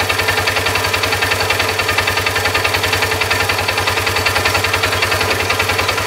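Polaris RZR 570's single-cylinder engine idling steadily with an even, rapid pulse. It is running after being started by bridging the starter solenoid terminals with a spanner, bypassing a failed brake light switch.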